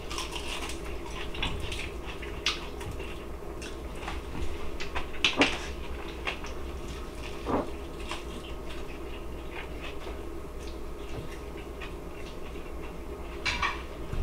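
A person biting into and chewing a crispy air-fried chicken wing and picking the meat off the bone: scattered crunches and small mouth clicks, the sharpest about five seconds in, over a steady low hum.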